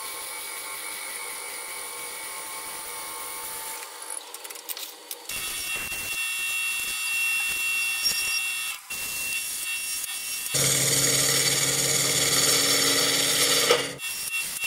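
Wood lathe spinning a hardwood vessel while a drill bit bores into its centre, then a hand-held turning tool cuts into its opening: a steady cutting hiss over the lathe's hum. The sound changes abruptly several times and is loudest for the last few seconds.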